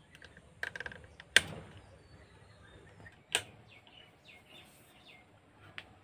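Rotary ceiling-fan speed regulator turned by hand, clicking through its steps: a quick run of small clicks, then sharper single clicks about a second and a half and three and a half seconds in.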